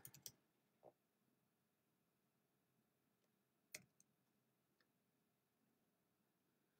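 Near silence broken by a handful of faint, isolated clicks from a computer being worked, the sharpest pair about four seconds in.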